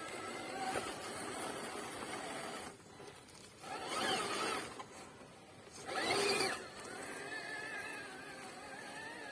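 Electric motor and gears of an MST CMX Jimny J3 RC crawler, whining steadily at low throttle, with two short, louder bursts about 4 and 6 seconds in as the pitch rises and falls again.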